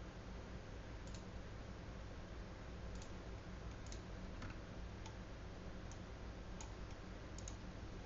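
Scattered single clicks of a computer mouse, a few seconds apart, over a steady low electrical hum.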